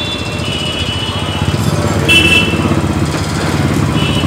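Royal Enfield 500cc single-cylinder motorcycle engine running at low speed with an even, fast beat, growing louder as the bike rides up close.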